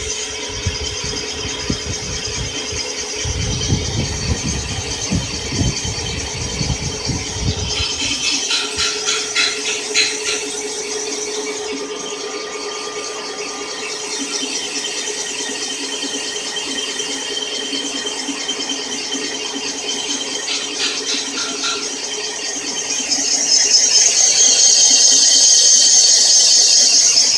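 Cylinder boring machine cutting an engine block's cylinder bore: a steady machine hum with a high, thin cutting squeal, which grows louder about three-quarters of the way through.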